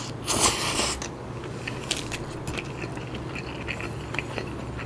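Close-miked eating sounds: a mouthful of nasi kandar taken from the fingers with a short loud hissing rush in the first second, then soft wet clicks and smacks of chewing.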